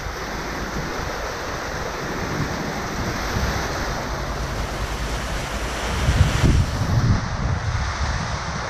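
Storm wind and heavy rain making a steady hiss, with gusts rumbling on the microphone, strongest about six to seven seconds in.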